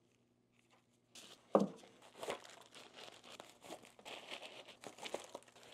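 Pink protective wrapping crinkling and rustling as a wrapped steel 1-2-3 block is unpacked by hand, with a sharp knock about a second and a half in.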